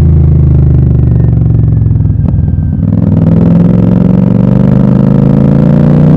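Royal Enfield Super Meteor 650's parallel-twin engine running through a Gursewak aftermarket exhaust with the dB killers removed. The engine note falls away over the first two seconds, dips with a sharp crack about two seconds in, then climbs steadily as the revs build again.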